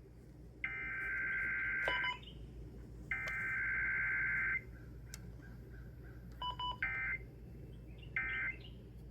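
Emergency Alert System SAME digital data bursts: harsh two-tone buzzy bursts, two long ones of about a second and a half each and then two short ones. The long bursts carry the alert's header codes; the short ones are end-of-message codes.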